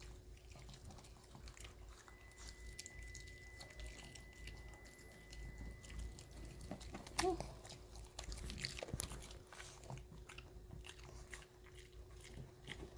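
A dog crunching and chewing pieces of raw cucumber, with repeated crisp bites.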